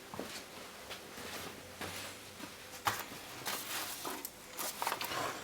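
Scattered light knocks, clicks and rustles, coming more often in the second half.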